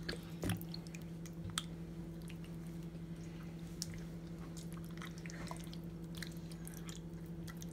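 Wet squelching and sticky, irregular smacks of a bare hand rubbing thick marinade into chicken pieces in a bowl, over a steady low hum.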